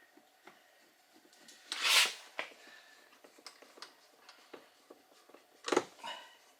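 A screw being refitted in a plastic car door trim panel: light irregular clicks and taps of the screw and hand tool, a brief scraping rustle about two seconds in, and a sharp knock near the end.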